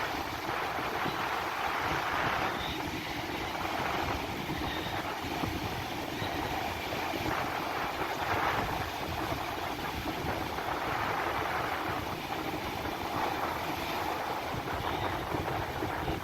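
Strong wind buffeting the microphone, with surf breaking, a steady rushing noise that swells and eases every few seconds.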